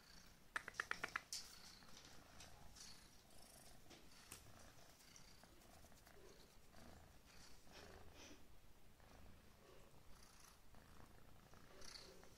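Persian-mix tomcat purring faintly. A quick run of about six sharp clicks sounds about half a second in.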